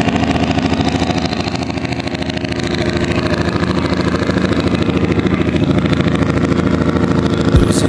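Small fishing boat's engine running steadily with a rapid, even beat, and a brief low thump near the end.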